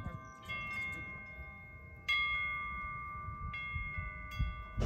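Wind chimes ringing: metal chimes struck at irregular moments, each note ringing on and overlapping the next, with the loudest strike about two seconds in and a few quicker ones near the end.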